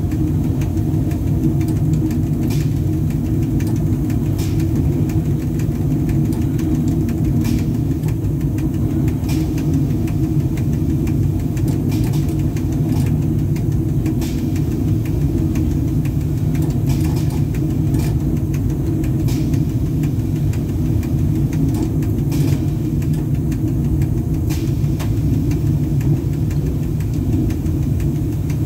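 Inside the cab of a VL10U electric locomotive under way: a steady low rumble, with short sharp clicks every one to three seconds.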